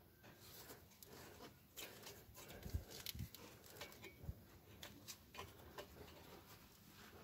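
Near silence with faint scattered clicks and three soft knocks between about two and a half and four and a half seconds in: hand tools and car parts being handled.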